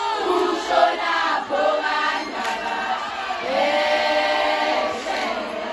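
A group of people singing together, with several long notes held and the melody rising and falling.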